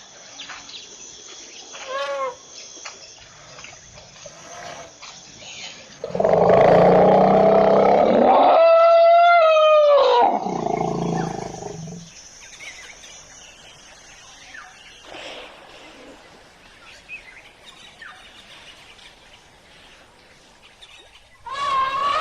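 An elephant trumpets once, loudly: a rough blast turns into a clear pitched call that drops in pitch as it ends. A faint bird chirps earlier, and a second call starts near the end.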